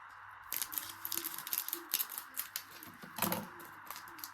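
Pokémon trading cards being flicked through in the hand: a quick, irregular run of light clicks and snaps of card against card, over a steady background noise.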